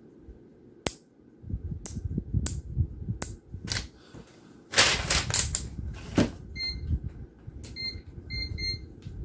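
Sharp clicks and knocks of a switch and test probes being handled, with a rustle about five seconds in. Then several short beeps from a multimeter's continuity beeper in the last third, the sign that the old power switch is closing the circuit.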